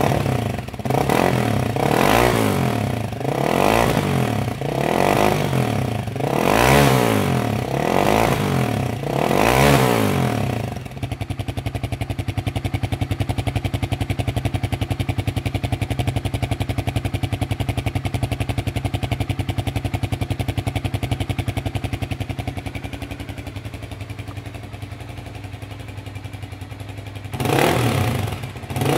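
Loncin Guerrero YF300 motorcycle engine and exhaust, standing still: the throttle is blipped about seven times in quick succession, each rev rising and falling, then the engine settles into a steady idle for about fifteen seconds, and is revved twice more near the end.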